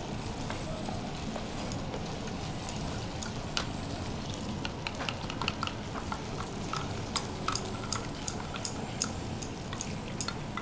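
A spoon stirring a paste of sugar powder, almond powder and rose water in a plastic bowl, ticking against the bowl's sides in quick, uneven clicks that grow busier in the second half. Under it runs a steady hiss from a pan of milk and rice boiling on a gas stove.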